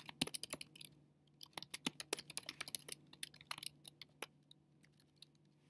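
Typing on a computer keyboard: quick runs of keystrokes with a short pause about a second in, thinning out and stopping after about four and a half seconds.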